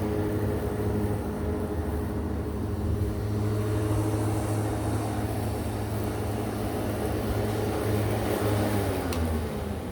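Corded electric lawnmower's motor running steadily with a hum, then winding down with a falling pitch near the end.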